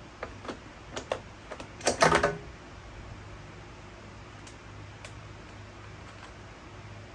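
Hand-work on a string trimmer during reassembly: several sharp clicks and knocks of tools and parts, with a short louder clatter about two seconds in, over a steady low hum.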